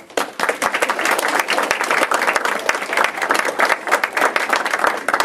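Audience of schoolchildren applauding, many hands clapping together.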